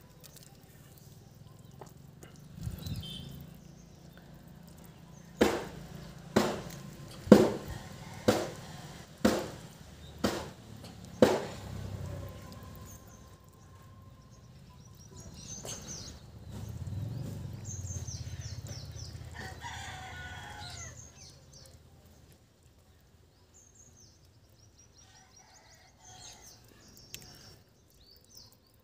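A run of about seven sharp knocks roughly a second apart, then a rooster crowing with small birds chirping around it.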